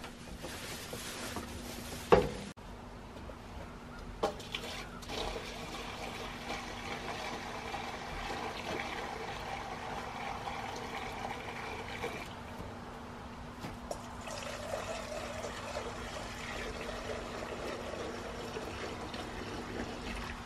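Water pouring steadily from a large plastic water jug into a stainless steel bowl, with a single sharp knock about two seconds in.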